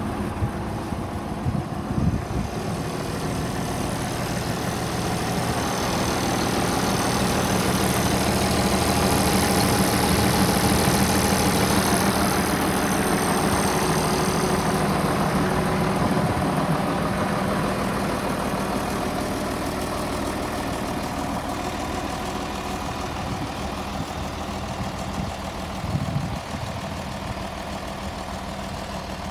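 International 1066 tractor's turbocharged diesel engine running at a steady idle. It grows louder for several seconds in the middle, and a couple of brief knocks sound over it.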